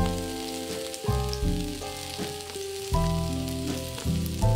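Food sizzling on a hot tabletop griddle, a steady frying hiss, under background music of held notes that change about once a second; the music is the louder of the two.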